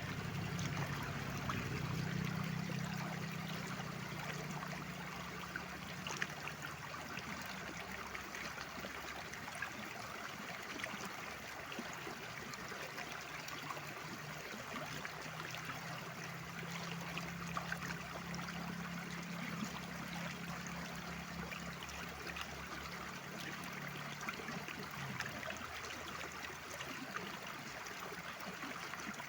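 Mountain stream water running and splashing steadily, with a low hum underneath that fades for a while midway and comes back.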